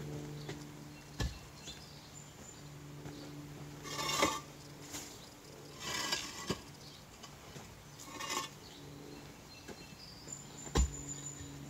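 Hollow concrete blocks knocking and scraping as they are lifted off a pallet and set down on the ground one by one: a few sharp knocks with short gritty scrapes between them, the heaviest thud near the end.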